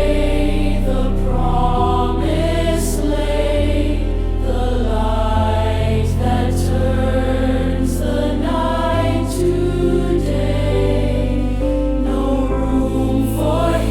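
Slow Christian Christmas worship song: a choir singing sustained chords over a steady accompaniment with a deep bass note that changes every few seconds.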